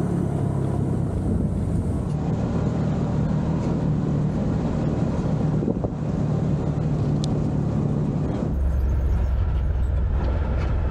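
Can-Am Maverick Sport side-by-side's engine running under way on a dirt trail, a steady drone that wavers with the throttle. About eight and a half seconds in it changes to a deeper drone.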